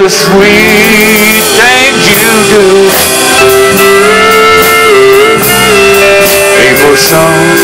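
Live country band playing a slow song: electric guitar and a male singer holding long notes with a slight waver.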